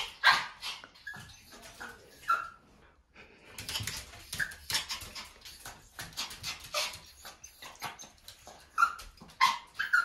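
Toy poodle giving short, high whines and yips, several of them, among scattered clicks and scratches of its claws on the bathtub.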